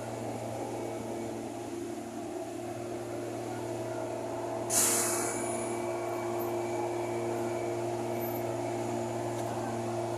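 RP-180-10 asphalt paver's diesel engine running at a steady hum while it lays asphalt. A short burst of hissing air comes just before halfway and fades over about a second.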